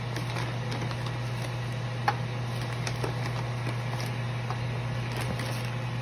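Steady low hum with a few faint scattered clicks and taps, the sharpest about two seconds in.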